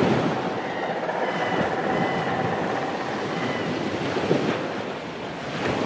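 Surf washing in on a shore with wind, a dense noisy rush that swells and eases, with faint steady high tones over it.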